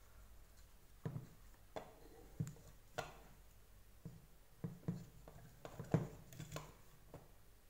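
Light knocks and clicks of hard plastic parts being handled: the plastic housing and small motor of a Deerma VC25 stick vacuum taken apart by hand, with about ten short taps spread irregularly through.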